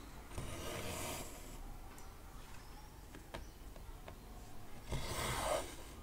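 Cotton embroidery thread pulled through 14-count cross-stitch fabric: two pulls, each about a second long, about half a second in and again near the end, with a few light clicks between.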